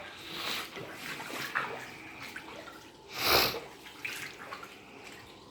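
Basement floodwater sloshing and splashing as someone wades through it, with one louder splash about three seconds in.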